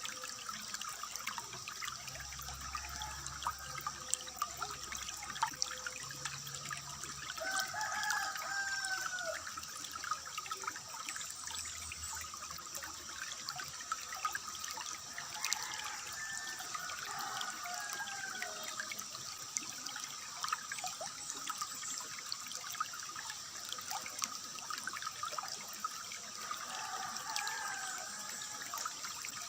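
Water trickling and splashing steadily, with a bird calling a short warbled phrase three times: about a quarter of the way in, about halfway, and near the end.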